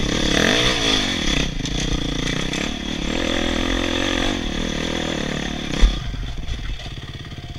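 Dirt bike engine revving up and down as the bike climbs a rocky hill, with clatter from the bike over the stones. About six seconds in there is a thump, and the engine drops to a low, evenly pulsing idle.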